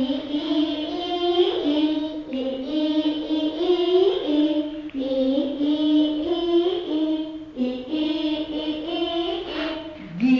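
A young child singing a recitation in a sing-song tune, one voice moving in short phrases between a few held notes.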